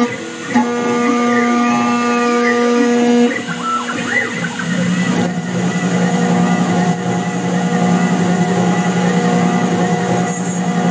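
CNC mill spindle running at 15,000 rpm while a 6 mm four-flute end mill cuts aluminium in a trochoidal pocketing path: a steady whine, with tones sweeping up and down in the first few seconds. About four seconds in, the sound turns rougher and lower.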